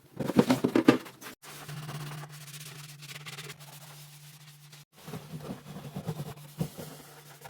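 Containers and shelf parts knocking and rattling as a fridge is emptied and cleaned. A steady low hum with a faint hiss sets in after about a second and a half, and the knocking starts again over it after about five seconds.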